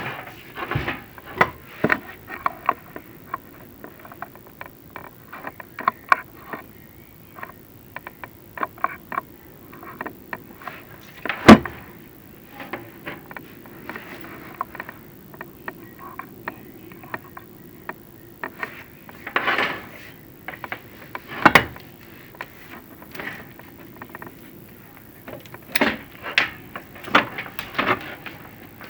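Chimney inspection camera and its cable knocking and scraping against the inside of a masonry flue as the camera is lowered: irregular clicks and scrapes, with two louder knocks, one near the middle and one about three-quarters through.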